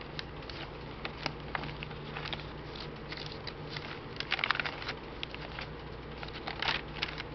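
Paper pages of a handmade junk journal rustling and crackling as they are handled and turned, in scattered crinkles, busiest about four and a half seconds in and again near the end. A steady low hum runs underneath.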